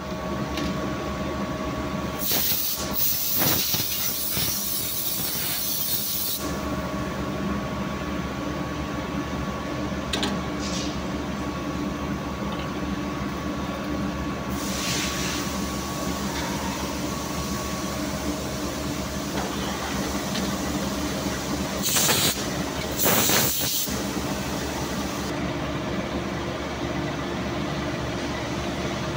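Machine-shop noise of gear-cutting machinery running: a steady hum with several held tones, broken by loud bursts of hiss a couple of seconds in, around the middle, and twice near the end.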